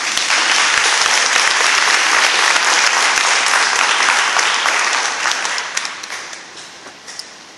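Audience applauding: full applause that thins out after about five seconds into a few scattered claps and dies away.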